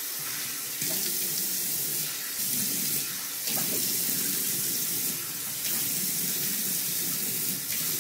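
Bathroom sink faucet running steadily while water is splashed onto the face by hand to rinse off cleansing oil; the splashing swells and eases every second or two.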